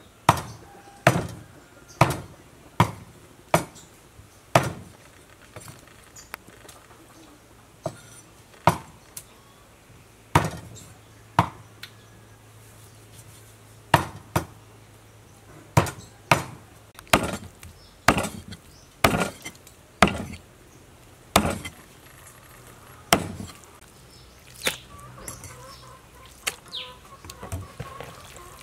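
Cleaver chopping raw pork into chunks on a chopping board: sharp, irregular strikes, about one or two a second, thinning out near the end.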